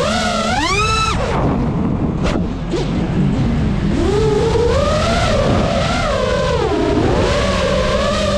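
GEPRC Mark5 FPV quadcopter's motors and propellers whining, the pitch swooping up and down with the throttle. A sharp climb about a second in breaks off, and the whine builds again from about four seconds in.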